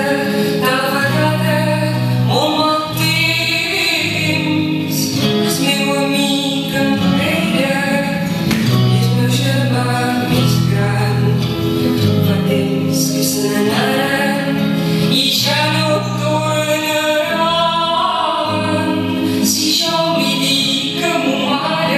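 Music with singing, the voices over long held low notes.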